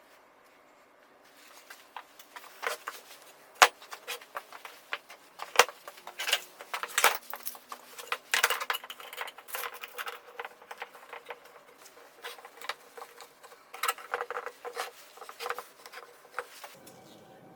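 A rapid, irregular run of light clicks, taps and scrapes from small hard objects in a workshop. It starts about two seconds in and dies away near the end.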